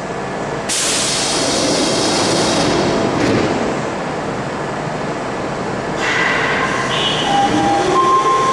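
Osaka Metro Chuo Line subway train moving through the underground platform. A sudden rush of wheel and air noise starts about a second in and surges again about six seconds in, with a rising and falling tone near the end.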